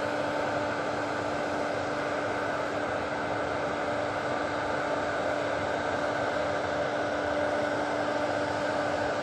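Steady mechanical drone of a machine running continuously: an even rushing noise with a constant hum underneath, unchanging throughout.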